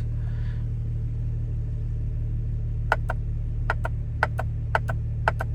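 Steady low hum of the BMW 335i idling. From about halfway in come about eight short, sharp, irregular clicks, the retrofitted steering-wheel shift paddles being pressed.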